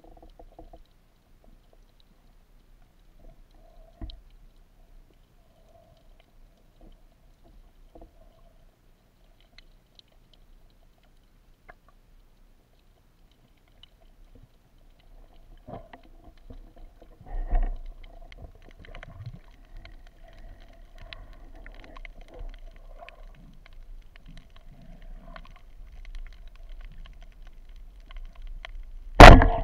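Muffled underwater sound picked up by a camera in a waterproof housing: faint with soft knocks at first, then a steady water noise with handling knocks as the diver swims. A single sharp, very loud knock comes near the end.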